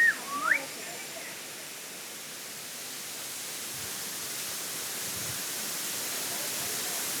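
Steady rushing of a large waterfall, an even hiss that grows gradually louder. Two short whistled notes sound at the very start, the second sweeping sharply upward.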